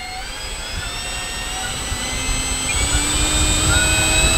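The 80mm electric ducted fan of a Freewing A-4 Skyhawk RC jet running at part throttle. It makes a rushing blast of air with a whine of several tones, climbing slowly in pitch and getting louder as the fan spools up.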